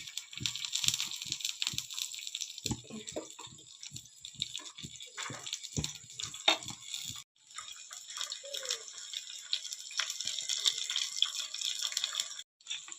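A steady hiss, with many irregular knocks and clicks. The knocks are busiest in the first half. The hiss drops out briefly about halfway through and again near the end.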